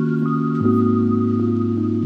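Background music: soft ambient music with sustained chords, changing chord about half a second in.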